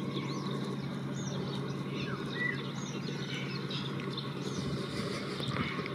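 Distant GU20 diesel-electric locomotive approaching, its engine a steady low hum and rumble, with small birds chirping and trilling over it.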